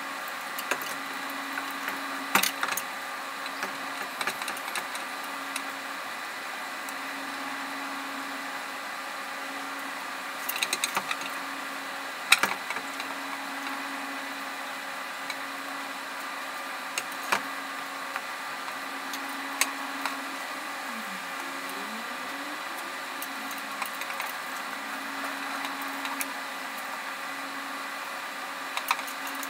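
Scattered sharp metallic clanks and taps of hand tools and parts against the underside of a van, the loudest about twelve seconds in, over a steady mechanical hum.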